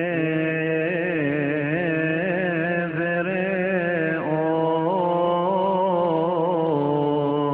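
Coptic liturgical hymn chanted by a voice: a long-held low note under a slowly wavering melismatic melody, with a new phrase starting about four seconds in.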